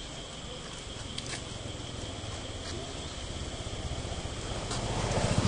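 Outdoor ambience of a steady, high insect buzz with a few faint clicks; over the last second an engine's low, rapidly pulsing rumble grows louder as a vehicle approaches.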